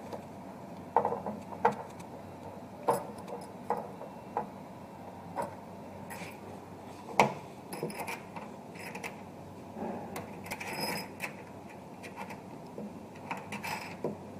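Scattered clicks, taps and rattles of round cable connectors being handled and plugged into sockets on a stainless-steel induction sealer, with a sharper knock about seven seconds in and a cluster of rattling later on.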